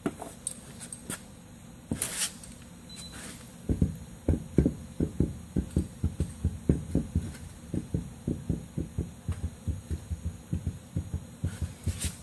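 A dog panting close to the microphone, a quick run of soft breaths about three to four a second that starts about four seconds in. It follows a few light clicks.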